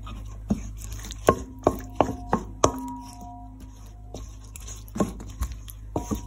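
Wooden spatula stirring a thick chilli-lime dressing in a stainless steel bowl, knocking against the bowl's side in a run of sharp taps that leave the bowl ringing briefly. The taps pause for a couple of seconds near the middle, then start again.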